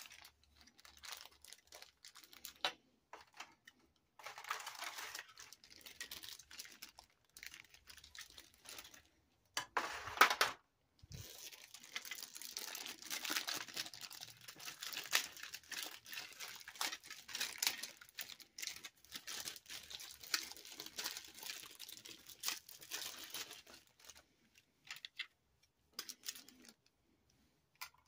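Clear plastic wrapping and a plastic packaging tray crinkling and rustling as they are handled, in irregular bursts, with a louder burst about ten seconds in and near-continuous crinkling through the middle of the second half.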